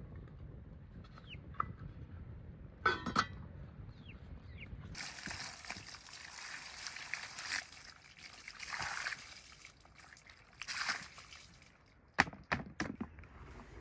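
Water poured and sloshing into a pot in several surges, starting about five seconds in and running for about six seconds. Before it comes a single knock, and near the end a few sharp clatters, with faint bird chirps early on.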